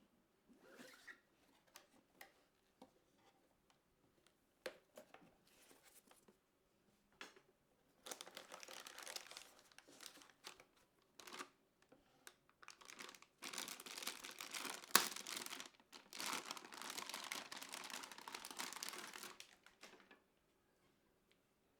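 Packaging rustling and crinkling as it is handled: a few light clicks and taps, then two long stretches of dense crackle with a single sharp click partway through the second.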